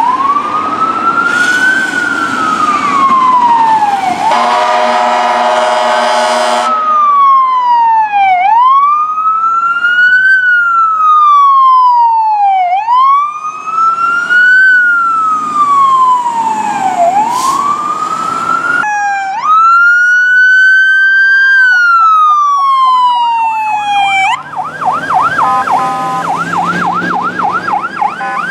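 Fire apparatus sirens: an electronic wail rising and falling about every four seconds. An air horn blast lasts about two and a half seconds around the fourth second. A second siren wails later and switches to a rapid yelp near the end.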